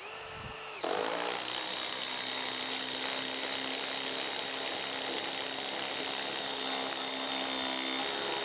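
DeWalt Atomic compact impact driver driving a long timber screw into a log. The motor whines briefly, then from about a second in it hammers steadily under load as the screw sinks into the wood.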